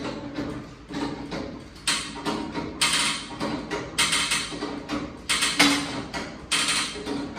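A 2.5-ton hydraulic trolley jack being pumped by its long handle, raising a scissor-type motorcycle lift table loaded with a superbike. The pump strokes come in a rhythmic run, about two a second, and grow louder after the first couple of seconds.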